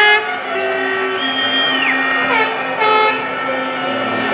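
Fans' air horns blowing, several blasts of different pitches overlapping. Each blast holds its note and then slides down in pitch at the end, over a steady low horn drone.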